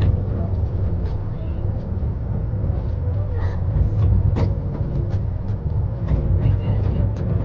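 Miniature park train running along its track, heard from aboard a carriage: a steady low rumble with irregular clicks and rattles.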